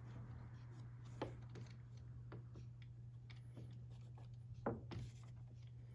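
A few light clicks and taps of small clock parts being handled, as the hands go onto the battery clock movement, over a steady low hum. The sharpest click comes just before the end.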